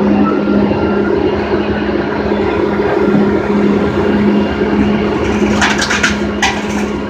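Heavy machine engine running with a steady hum, and scrap metal clanking and banging several times in the last second and a half as the load is unloaded by a magnet crane.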